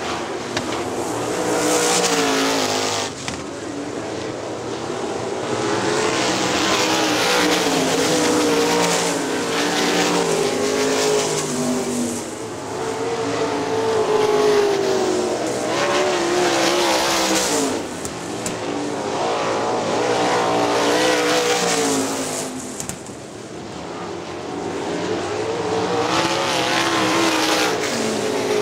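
Several 410 sprint cars' methanol-burning V8 engines racing on a dirt oval, the engine pitch rising and falling as they accelerate down the straights and back off into the turns. The sound swells and fades every few seconds as the cars come past and go round.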